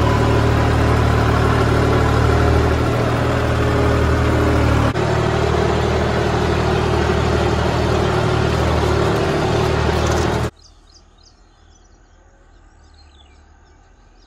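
John Deere tractor's diesel engine running steadily while it pulls a tillage implement through a field, heard from the driver's seat. About ten seconds in, the engine sound cuts off abruptly, leaving only a faint outdoor background.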